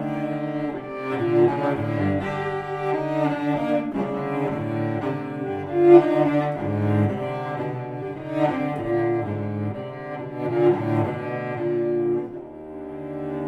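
Cello played with the bow: a slow lament of long held notes, dropping quieter near the end.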